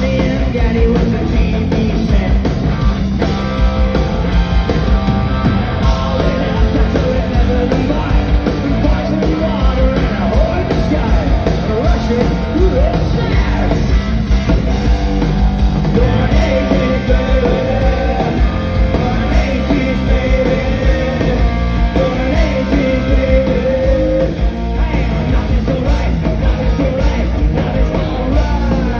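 Live rock band playing loud: electric bass, guitar and drum kit driving along, with a singer singing into the microphone.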